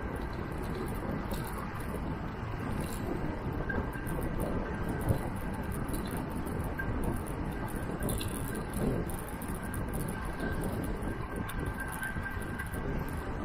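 Steady rushing noise of a bicycle ridden at speed: wind on the camera microphone mixed with tyre noise and the traffic of the multi-lane road running alongside. A single sharp knock comes about five seconds in.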